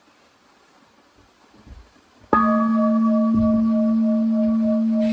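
Near silence with a couple of faint low thumps, then about two seconds in a singing bowl is struck once and rings on. It holds a steady low tone with higher overtones, one of them wavering in a slow pulse.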